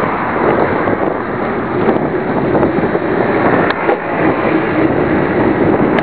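Loud, steady wind noise buffeting the microphone of a camera on a moving bicycle.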